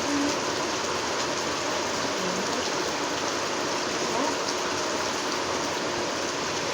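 Rain falling steadily, a dense, even hiss with no letup.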